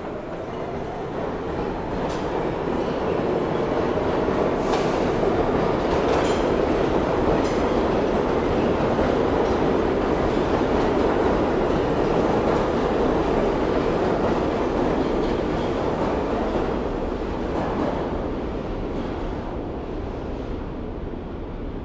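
R62 subway train pulling out of the station: the rumble of wheels on rails swells to a peak mid-way, then fades away near the end, with a few sharp clicks along the way.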